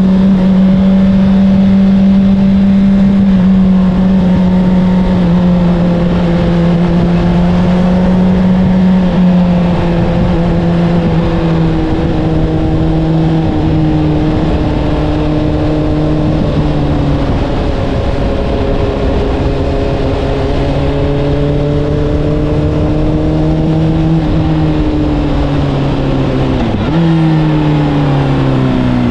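Honda CBR600RR's inline-four engine through an Akrapovic exhaust, ridden at steady revs that ease down in small steps, over wind rush. Near the end the revs jump up briefly, then fall away steadily.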